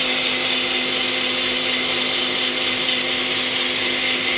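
Countertop blender motor running steadily at full speed, blending a shake of ice cream, berries and milk, with a constant hum and a high whirr.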